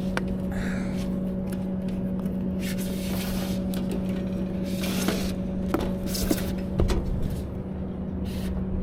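Thermostat wire rubbing and scraping as it is pulled through a rubber grommet and handled, with a few sharp clicks and short hissing rubs. A steady low machinery hum runs underneath.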